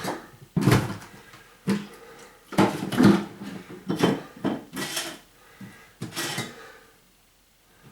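Kitchen items being handled and set back in place: a series of about eight separate knocks and clatters, stopping about seven seconds in.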